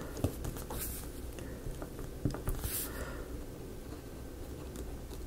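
Faint scratching strokes of a white paint pen's tip along a thin laser-cut wooden strip, with a few small clicks and two short soft hissy strokes.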